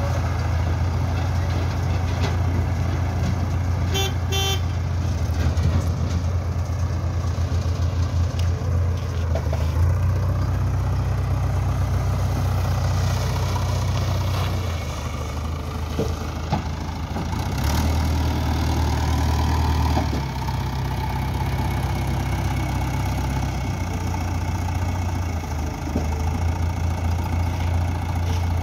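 Diesel engine of a JCB 3DX backhoe loader running while it works, its note rising and falling with the load several times. A brief high-pitched toot about four seconds in.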